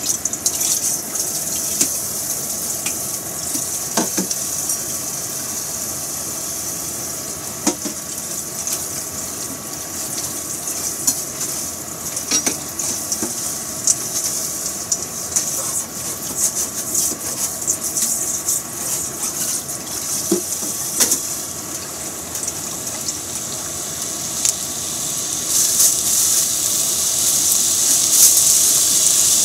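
Chicken pieces frying in a pan on high heat: a steady sizzle with scattered pops and crackles, which grows louder near the end.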